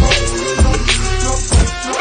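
Hip hop background music with a heavy, steady beat.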